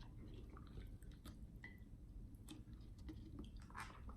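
Faint, soft wet food sounds with scattered small clicks, as of eating or of serving udon into a bowl.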